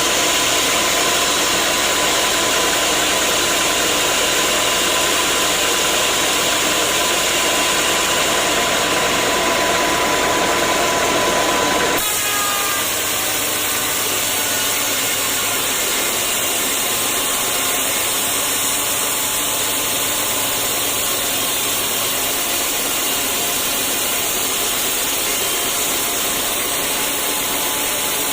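Sawmill saw and machinery running steadily while cutting teak logs. About twelve seconds in the sound shifts abruptly to a slightly quieter mix with less low rumble.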